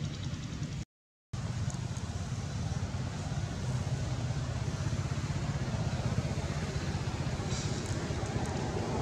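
Steady low outdoor rumble, dropping out completely for a moment about a second in.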